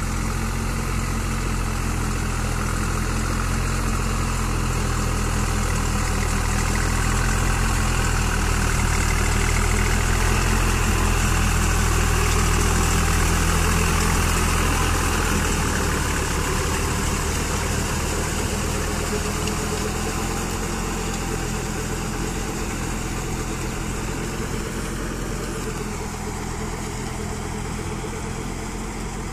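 Same Deutz Fahr 50 hp 4WD tractor's diesel engine running steadily under load while it drives a rotavator through wet paddy mud. It grows louder as the tractor comes close, its low hum shifts about halfway through as it passes, and it fades as the tractor moves away.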